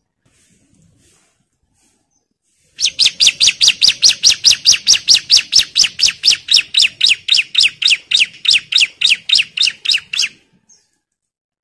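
Male bar-winged prinia (ciblek) calling a fast, even run of loud, sharp identical notes, each dipping slightly in pitch, about five a second for some seven seconds, starting about three seconds in: an agitated call aimed at a rival.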